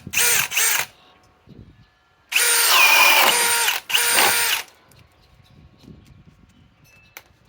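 Milwaukee M18 Fuel Gen 4 cordless hammer drill turning a 1.5-inch speed demon bit: three quick trigger blips, then a loud run of about a second and a half with the motor whine dipping in pitch as the bit bites into wood, then a shorter final burst.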